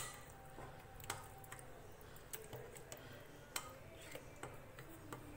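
Faint, irregular clicks of a spoon knocking against the bowl while rava, curd and water are stirred into idli batter.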